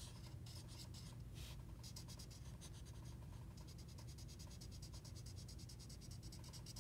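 Blue felt-tip marker scratching across paper in rapid back-and-forth colouring strokes, pausing briefly now and then, over the steady low hum of a room fan.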